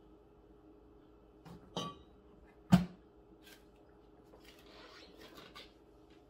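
A bread machine's plastic lid is shut with one heavy thump, just after a sharper knock with a brief metallic ring. Later comes soft rustling as a ball of bread dough is handled.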